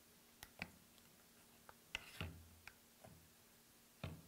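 Scattered faint clicks and light knocks of a plastic suction plate being pressed and seated onto a vacuum block on a wooden tabletop.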